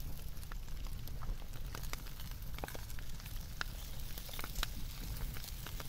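Firewood burning in a folding fire pit, crackling with scattered, irregular sharp pops.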